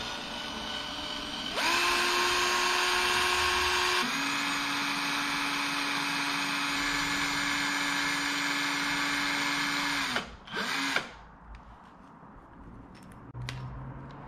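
Cordless 18-volt drill spinning a wooden dowel to strip old monofilament line off a spinning reel. The motor whine steps up in pitch and loudness a couple of seconds in, drops to a lower pitch about four seconds in, then winds down about ten seconds in, followed by one brief second burst.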